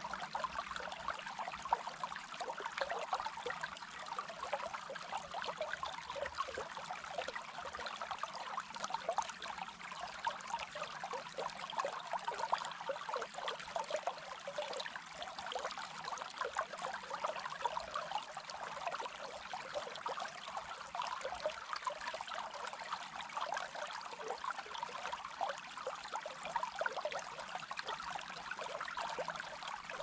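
Shallow forest stream running over stones, a steady, even gurgle of flowing water.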